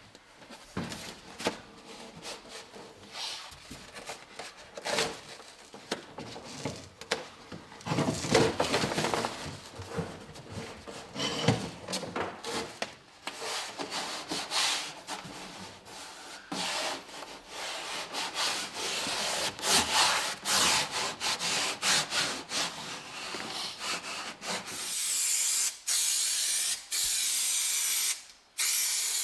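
Hands rubbing and pressing a sheet of Rexine leathercloth onto a glued wall panel, with irregular rustling and scraping strokes as the sheet is smoothed down and lifted at the edge. Near the end comes a steady hiss for about three seconds that stops abruptly, matching adhesive being sprayed onto a masked panel.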